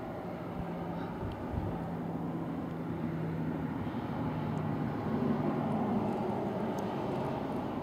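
A vehicle engine running steadily with a low hum, against outdoor noise, swelling a little about five seconds in.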